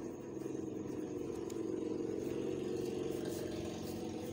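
Onions and ginger-garlic paste frying in hot oil in a karahi, sizzling faintly as a wooden spoon stirs them, under a steady low hum that is the loudest part of the sound.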